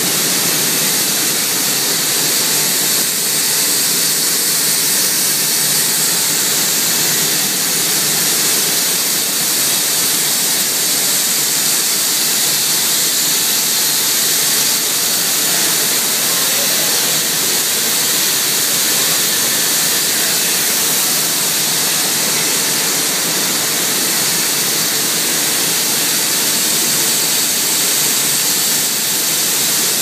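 Steady, loud hissing rush of a rubber extrusion and vulcanization production line running, with no breaks or changes.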